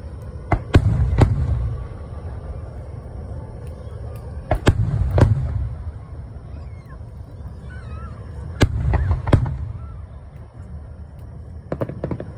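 Aerial fireworks shells bursting: sharp bangs in clusters of two or three, about every four seconds, each followed by a low rumble, with a quicker run of crackling pops near the end.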